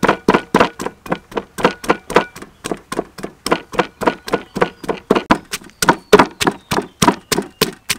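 Wooden pestle pounding garlic and chillies in a clay mortar, a steady run of knocks at about four to five a second.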